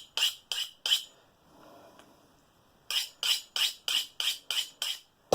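Cheap stainless scissor blades scraping against the edge of a stainless steel spoon in quick strokes, about three a second: a few strokes, a short pause, then a longer run. This is the honing that raises a burr to bring dull blades back to a cutting edge. A sharper clink comes right at the end.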